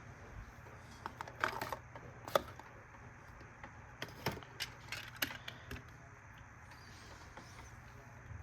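Light clicks and taps of a diecast metal toy car and its plastic display stand being handled, in two short clusters, over a steady low hum.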